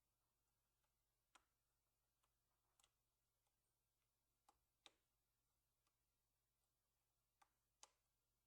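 Near silence broken by about six faint, sharp clicks, some in close pairs: plastic clips snapping loose as a prying tool works the ThinkPad Helix's screen away from its back cover.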